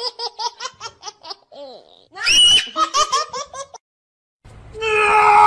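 A small child laughing in quick, high-pitched bursts, with a higher squeal about two seconds in. The laughter cuts off near the end and a different steady, droning sound begins.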